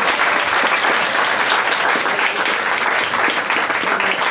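An audience applauding: many hands clapping together in a steady, dense clatter.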